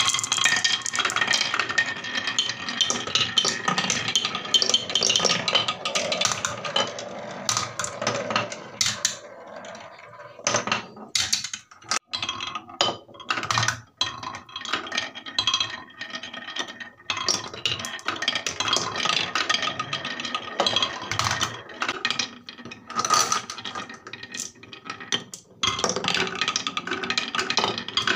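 Many marbles rolling and clattering through a wooden marble run, circling a carved spiral funnel and clacking along wavy grooved tracks. The clatter is dense at first, thins to scattered clacks in the middle, and thickens again later.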